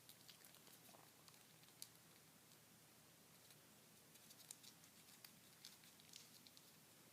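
Near silence, with faint scattered light ticks and rustles of paper being handled and folded, more frequent about four to six seconds in.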